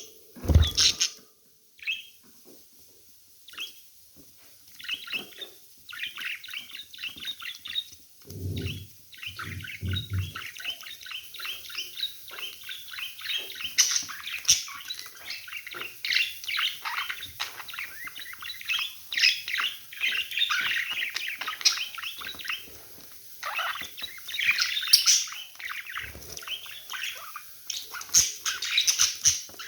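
Budgerigars chirping and warbling in a fast, continuous chatter of many short notes, with a couple of low thumps about nine seconds in.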